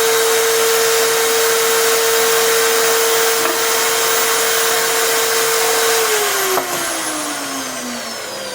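Electric drill driving a homemade router table, running at steady speed with a high whine. About six seconds in it is switched off and spins down, its pitch falling, with a single click just after.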